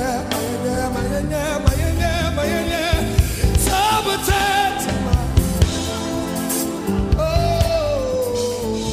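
Gospel worship music: a singer holds long, wavering notes with vibrato over a band with drum kit, one note sliding down in pitch about seven seconds in.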